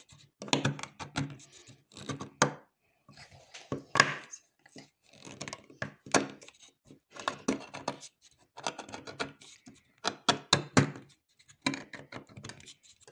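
Handheld manual can opener cutting around the lid of a tuna tin: the key is turned in short bursts of clicking, crunching strokes as the cutting wheel bites through the tin, with brief pauses between turns.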